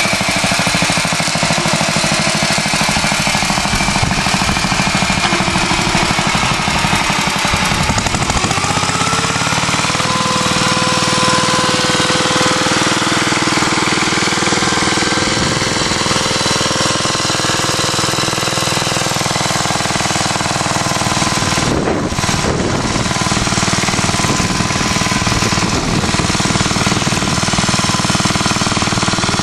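1947 Clifford Mk1 walking tractor's single-cylinder JAP engine running hard with a rapid, even firing beat as it pulls a plough through the soil. Its pitch rises a little about eight seconds in.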